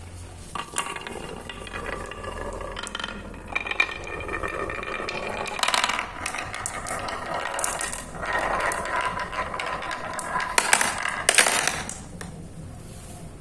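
Hard marbles rolling and rumbling down a carved wooden zigzag groove, then clicking and clattering against wooden dowel pegs on a sloped board. The loudest knocks come near the end as they drop into a plastic catch bowl, then the run goes quiet.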